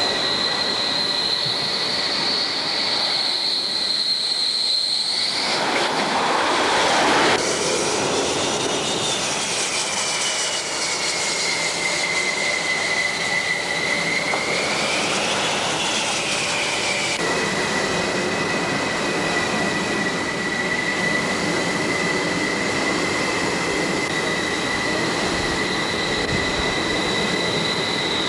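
Jet aircraft engines on a carrier flight deck: a loud, steady high-pitched turbine whine that sags and rises in pitch, with a louder rush of jet noise about six seconds in.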